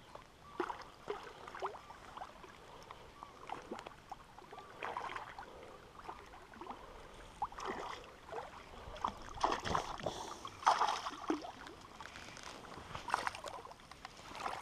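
Irregular water splashes at the side of a small boat: a hooked small pike thrashing at the surface as it is brought in.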